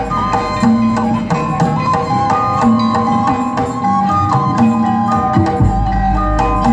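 Live Sundanese gamelan music played for a dance: ringing tuned metal notes moving step by step over steady hand-drum strokes.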